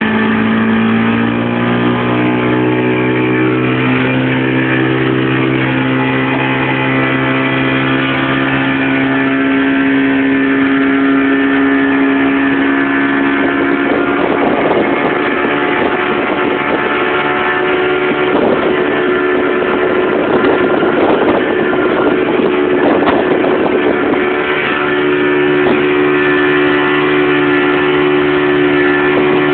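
Outboard motor of a small boat running hard at about 80% throttle. Its pitch climbs a little over the first several seconds and then holds steady. Through the middle stretch it is mixed with rough, rushing noise from the hull slapping through the water.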